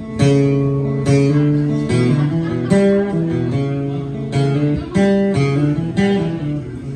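Acoustic guitar strumming the intro of a song, one chord stroke about every second with the chords ringing on between strokes.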